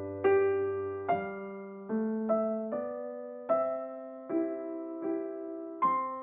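Background music: a soft electric piano playing a slow melody, each note struck and left to fade.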